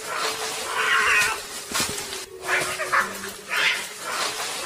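A cat calling repeatedly, in rough, noisy bursts about once a second over a steady low tone.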